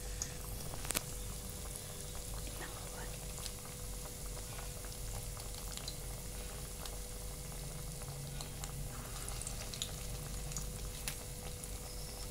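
Arbi-leaf and urad dal vadas frying in hot oil in a steel kadhai on low heat: steady bubbling with scattered small crackles and a faint steady hum.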